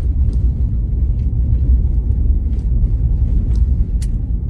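Steady low rumble of a vehicle driving on a gravel road, tyres and engine heard from inside the cab, with occasional faint clicks and one sharp click near the end.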